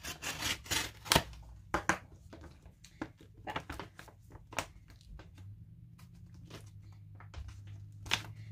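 Plastic mailer bag being slit with an X-Acto knife and pulled open by hand: a string of sharp crackles and short rips, busiest in the first two seconds, with one more loud one near the end.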